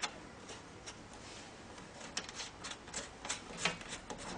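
Small irregular clicks and scrapes of a foot-switch cable's round metal plug being fitted into its socket on a laser machine's back panel, the clicks coming thicker in the second half.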